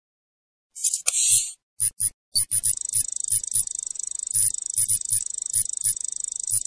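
Electronic sound effects for an animated loading screen, starting about a second in: a run of short digital blips, each with a low thump, and from about two and a half seconds in a fast, high-pitched trill running under them.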